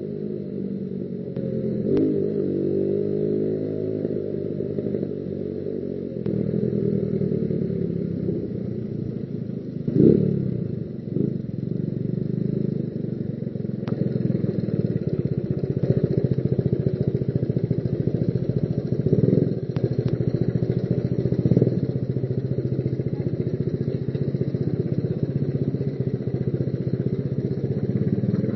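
Motorcycle engine running while the bike is ridden, its pitch rising and falling with the throttle, with a few brief louder swells of revs about ten seconds in and again around twenty seconds.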